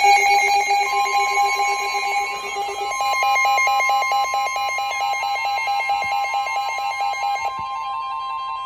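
Emergency alert broadcast alarm: several steady, high-pitched electronic tones sounding together, joined about three seconds in by a rapidly alternating warbling tone.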